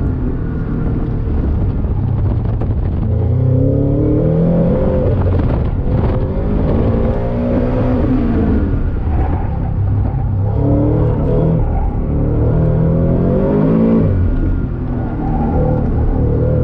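Supercharged 2022 Subaru BRZ's 2.4-litre flat-four engine, heard from inside the cabin, pulling at high revs near redline. Its pitch climbs several times and falls back sharply each time the throttle is lifted or the car is braked.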